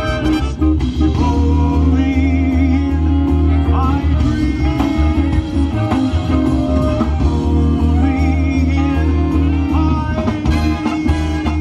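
Live swing band playing: saxophones and trumpet over upright bass and drums, with a lead singer.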